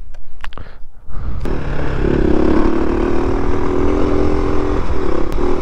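KTM supermoto motorcycle engine heard from the rider's helmet: quiet and coasting with a few sharp clicks at first, then about one and a half seconds in it comes back on the throttle and runs steadily, with a brief dip about five seconds in.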